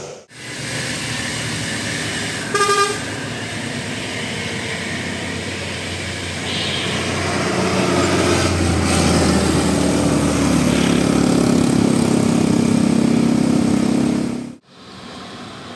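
Large bus traffic: a short, loud horn blast about three seconds in, then a heavy bus engine growing louder as it draws near, breaking off suddenly near the end.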